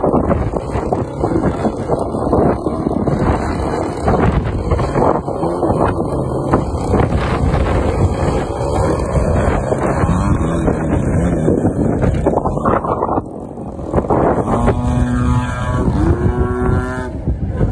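Radio-controlled model airplane's motor and propeller buzzing in flight, with heavy wind noise on the microphone. From about 15 s in, the motor's whine stands out clearly and shifts in pitch.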